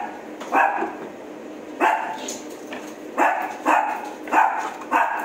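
A dog barking repeatedly, about six short barks at irregular intervals.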